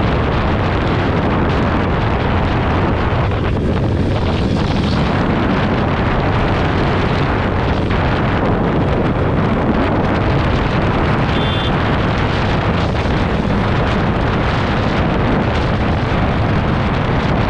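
Loud, steady wind rush and buffeting on the microphone of a motorcycle at riding speed, with the bike's running noise underneath.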